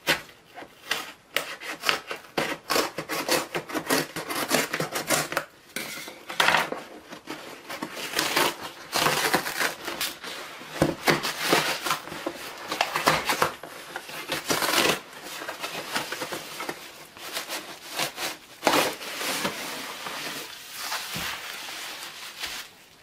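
A cardboard shipping box being cut and torn open by hand, then a bubble-wrapped package pulled out of it. It makes a continuous run of scraping, rubbing and crackling of cardboard and plastic wrap, with many sharp clicks.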